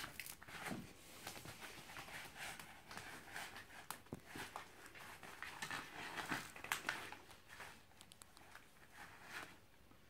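Kittens' claws scratching and catching on the nylon mesh and fabric rim of a Sleepypod carrier lid: an irregular run of small scratches, clicks and rustles that thins out near the end.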